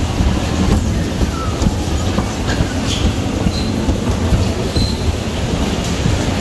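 Bumper cars running across the ride's floor: a loud steady rumble with a few faint knocks and short high squeaks now and then.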